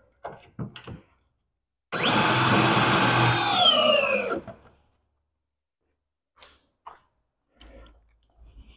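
Power drill running for about two and a half seconds with a steady whine, which drops in pitch as it winds down at the end. A few short knocks and clicks of handling come before and after it.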